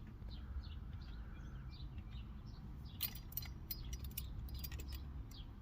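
Small birds chirping repeatedly, with a quick cluster of light clicks and rattles about three to five seconds in, over a faint low rumble.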